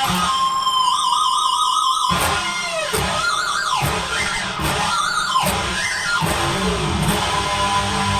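Electric guitar through a high-gain amp preset set up to squeal. It plays a high squealing note held with wide vibrato, then several squeals that slide steeply down in pitch.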